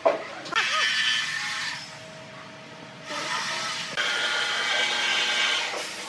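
A sharp wooden knock, then two stretches of scraping as pine boards are slid and pushed together across a paper-covered workbench.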